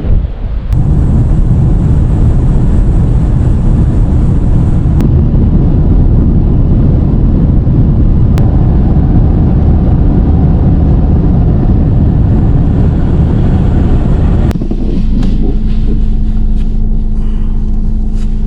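Car driving in strong wind: a loud, steady low rumble of road and wind noise, with a steady engine hum coming in about fourteen seconds in.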